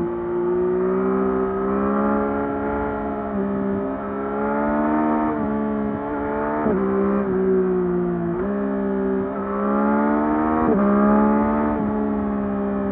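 Yamaha MT-09 SP's three-cylinder engine through its stock exhaust under way. The pitch climbs slowly under throttle and shifts abruptly several times at gear changes.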